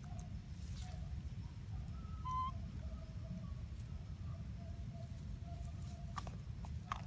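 Outdoor ambience: a steady low rumble with faint, distant held calls, a short high call about two seconds in, and a few light clicks near the end.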